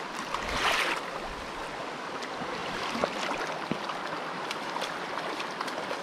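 Small high-mountain stream running steadily. There is a brief louder burst of noise under a second in, and scattered small clicks throughout.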